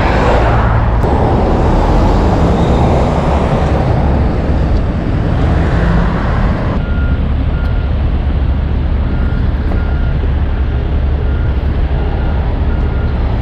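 Street traffic: a car passes close by at the start over the steady rumble of heavy truck engines. From about halfway a backup alarm sounds, a single-pitch beep repeating at an even pace.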